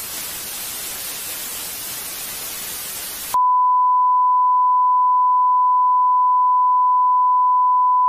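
Television static hiss that cuts off suddenly about three and a half seconds in, replaced by the louder steady single-pitch test tone that goes with colour bars.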